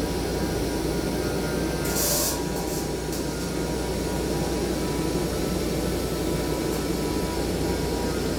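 Steady machine noise in a pipe-welding workshop, a low hum with a faint whine, broken about two seconds in by a short sharp hiss.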